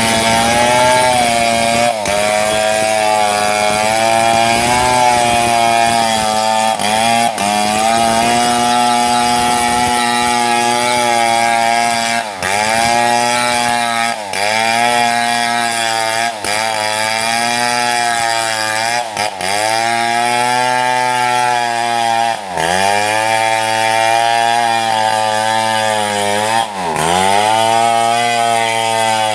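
Chainsaw ripping lengthwise through a mahogany log, the engine held at high revs. Its pitch dips and recovers roughly every two seconds as the chain bogs under load in the cut, the dips deeper in the second half.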